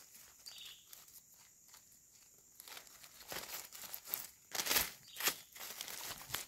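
Dry leaf litter crackling and rustling under a hand. It is faint at first and grows busier about halfway through, with two sharp crackles about half a second apart near the end.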